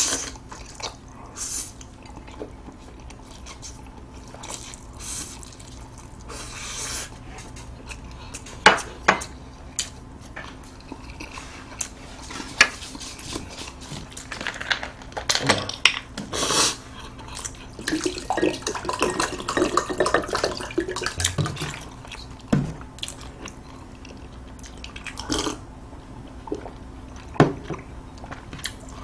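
Close-miked eating sounds: slurping and chewing jjajang buldak noodles, with scattered short clicks of chopsticks on a bowl, and drinking from a plastic water bottle.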